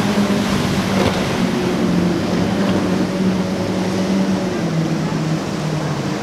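Triple outboard motors on a Yellowfin center-console boat running under way: a steady engine drone over the rush of wake and spray. The engine note drops a little about three-quarters of the way through.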